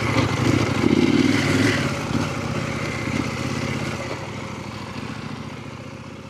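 KTM 890 Adventure's parallel-twin engine through a Black Widow stainless exhaust, getting louder under throttle for the first couple of seconds, then fading steadily away.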